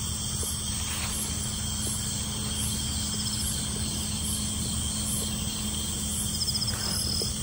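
Night chorus of crickets and other insects: a high trill pulsing about twice a second, with short trilled chirps breaking in a few times, over a steady low hum.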